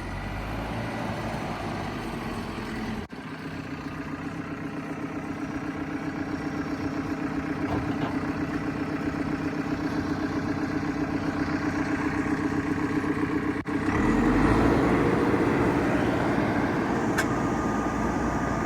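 The 109 hp JCB diesel engine of a 2012 JCB 3CX backhoe running steadily. About fourteen seconds in it gets louder and its pitch rises as the engine is revved, and a steady high whine joins near the end.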